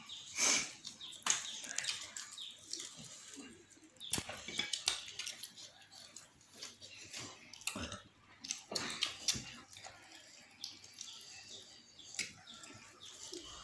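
Two boys eating rice and curry with their hands: wet chewing and lip-smacking, and fingers mixing food on the plates, in irregular short smacks and clicks.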